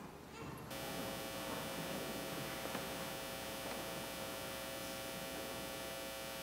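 Steady electrical hum and hiss from a sound system, cutting in suddenly about a second in and holding steady, typical of a microphone channel being opened.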